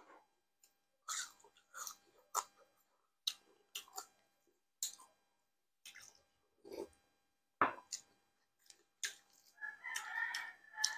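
Close-up eating sounds as rice and viands are eaten by hand: wet chewing and lip smacks in short separate bursts, with a slurp of broth from a glass bowl about seven seconds in. Near the end comes a brief wavering higher-pitched sound lasting about a second.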